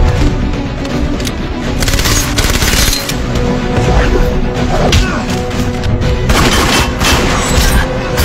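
Action-movie soundtrack of a street gunfight: shots and bursts of automatic gunfire, with booming impacts, over a steady music score.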